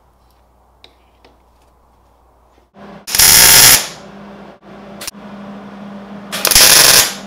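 MIG welder laying tack welds on steel: two loud crackling arc bursts, the first about three seconds in and lasting under a second, the second near the end, with a brief blip between them. A steady low hum runs between the tacks.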